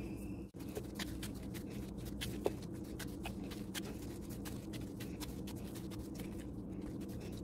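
Gloved hands kneading a warm churros dough over cling film: soft, irregular crinkling and squishing, a dense run of small clicks, over a steady low hum.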